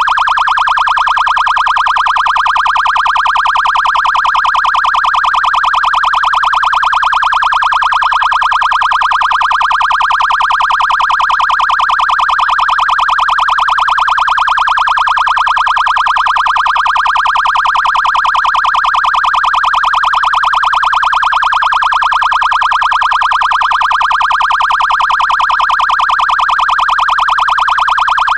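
Code 3 electronic police siren on its Hyper Yelp tone: a loud, very fast up-and-down sweep, steady and unbroken.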